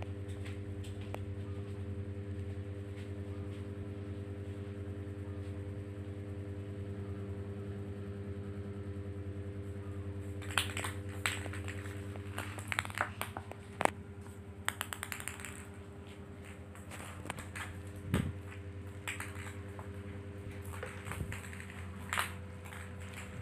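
A steady low hum throughout. From about ten seconds in come scattered light taps and clatters of a kitten dashing after a ball on a tiled floor.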